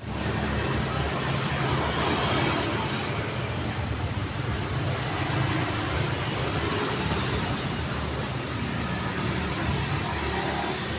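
City road traffic ambience: a steady wash of passing cars and engines, with a low engine hum under constant tyre and road noise.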